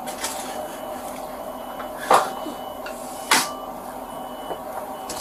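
Two sharp knocks about a second apart over a steady background hum, with a faint high beep repeating about once a second.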